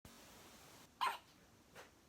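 Newborn baby hiccuping in its sleep: one short, sharp hiccup about a second in, then a fainter sound near the end.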